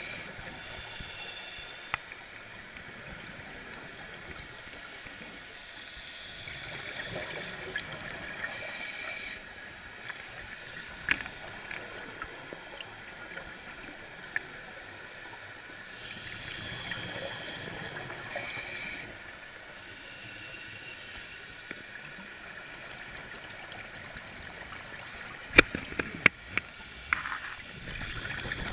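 Scuba regulator breathing heard underwater: hissing breaths and bubbling exhales that come and go roughly every nine to ten seconds. A few sharp clicks, and a cluster of louder clicks and knocks near the end.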